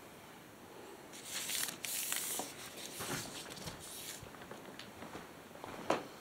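Footsteps and rustling movement, crunching and scuffing for about three seconds starting about a second in, then a single sharp click near the end.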